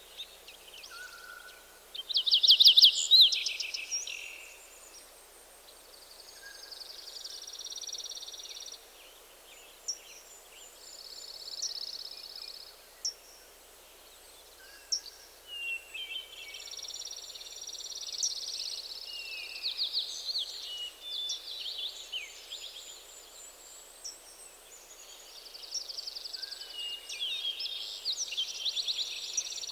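Several songbirds singing in a forest, their short phrases overlapping and repeating, with one loud, fast trilling phrase about two to three seconds in. A brief lower whistle returns every several seconds beneath the songs.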